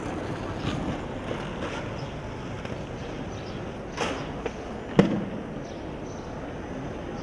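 Aggressive inline skate wheels rolling over stone paving, with two sharp clacks about a second apart past the middle, the second the loudest, as the skates hit the ground.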